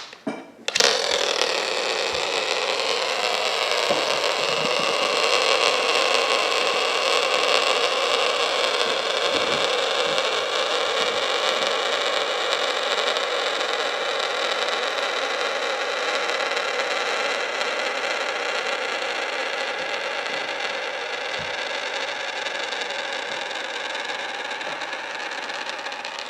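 Hand spinner made of glued-together glass marbles whirring as it spins, starting with a click just under a second in and slowly fading as it loses speed.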